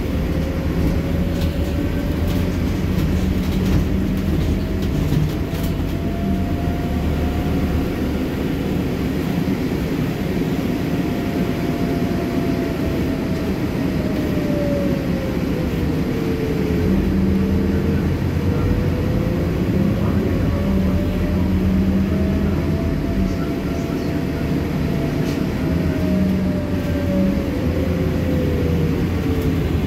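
Interior of a Scania CityWide city bus on the move: the engine thrash and loud air conditioning make a steady heavy rumble. Over it a whine rises, dips about halfway through, climbs again and falls near the end as the bus changes speed.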